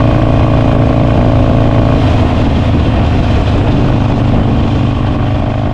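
Harley-Davidson Sportster Roadster's V-twin running loudly through an aftermarket Vance & Hines exhaust. It is steady at first, and the engine note changes about two seconds in.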